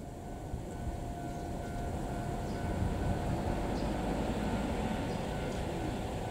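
Mōka Railway steam locomotive train approaching, a low rumble growing steadily louder.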